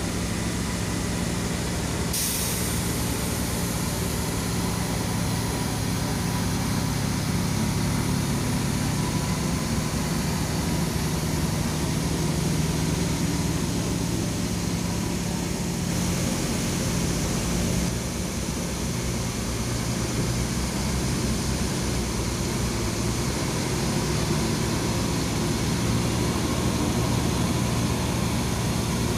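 Diesel engine of a Tonly off-highway dump truck, running steadily as the loaded truck drives across the site: a steady low drone with a constant hum.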